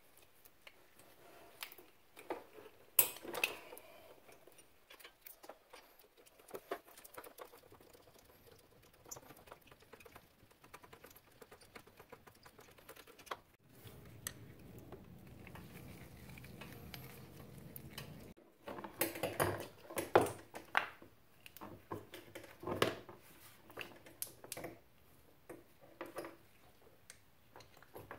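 Scattered small clicks, taps and light rattles of hand tools and gloved hands working on the carburetor fittings of a Honda TRX90 ATV, such as a screwdriver loosening the intake boot clamp. The clicks come irregularly, and a faint steady hum sits under them in the middle stretch.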